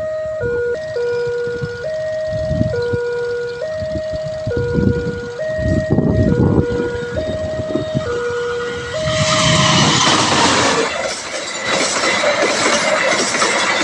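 Railway level-crossing warning siren sounding a two-tone alarm, alternating a higher and a lower note about a second each. About ten seconds in it stops as a passing train's loud rush of wheel and rail noise takes over.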